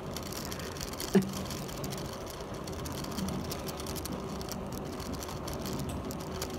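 Bicycle freewheel ticking steadily as the bike rolls along, with one short sharp click about a second in.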